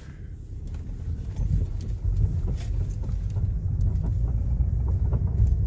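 Car's front suspension rattling and clicking over bumps, irregular knocks over a steady low rumble of road noise. The cause is worn sway bar links.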